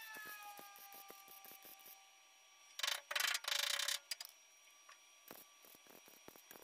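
MIG welder arc crackling in short tack-weld bursts on thin sheet steel: one burst of about a second near the middle and a brief one later, with light clicks in between.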